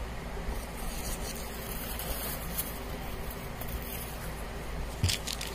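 Electric fan running steadily with a low hum. Near the end there is a single knock followed by a few short crackling clicks.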